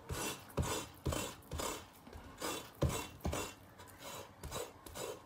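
Kitchen knife scraping fat off boiled pork skin on a wooden cutting board, in short repeated strokes about twice a second, the later strokes softer.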